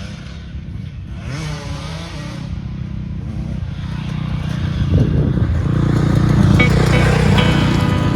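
KTM 250 SX single-cylinder two-stroke dirt bike engine running and revving, with pitch rising and falling, getting steadily louder as it comes closer.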